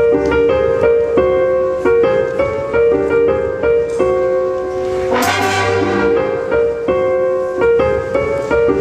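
School jazz band of saxophones, brass, keyboard and drums starting a piece with held chords that change every second or so. A loud crash accent comes about five seconds in.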